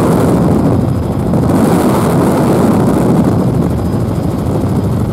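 Helicopter in flight, heard from inside the passenger cabin: a loud, steady din of engine and rotor.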